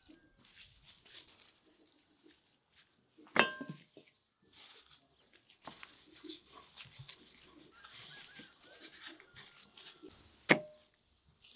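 Gloved hands handling raw spice-rubbed chickens on a wooden cutting board: soft, scattered handling noises of skin and meat, with two sharp knocks, one about three seconds in and one near the end.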